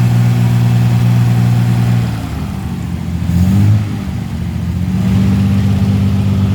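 Engine of a 1938 SS Jaguar 3½ Litre running steadily in gear with the wheels turning. It dips about two seconds in, briefly revs up, then settles back to a steady run.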